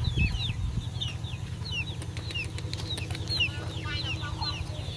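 Chickens calling: many short, high, falling peeps, over a steady low rumble.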